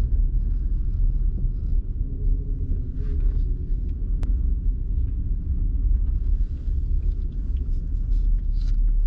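Car engine and tyre rumble heard from inside the cabin while the car drives.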